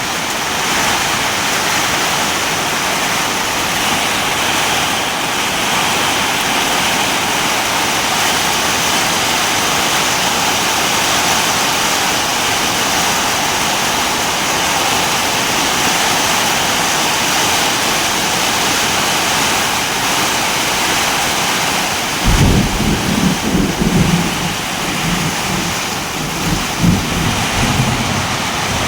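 Steady heavy rain hissing. About three-quarters of the way through, a low rumble of thunder swells and falls in uneven waves for several seconds.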